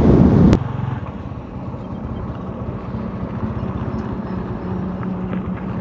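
Motorcycle engine running steadily at low revs as the bike rolls slowly, with an even low pulsing. It follows a loud wind rush on the microphone that cuts off abruptly about half a second in.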